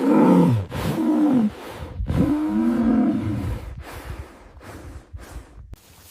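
A large animal calling twice in deep, drawn-out calls about two seconds apart, each arching up and then falling in pitch, followed by quieter breathy sounds.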